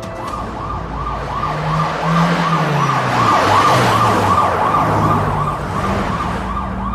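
Police car sirens yelping in a fast, evenly repeating sweep of about three cycles a second, with vehicle noise that swells to its loudest around the middle as traffic rushes by.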